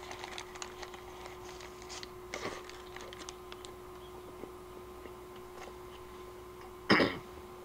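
A hamburger being bitten and chewed in its paper wrapper: soft crackles and small clicks of paper and mouth in the first few seconds, then quieter chewing. A short louder rustle about seven seconds in, over a faint steady hum.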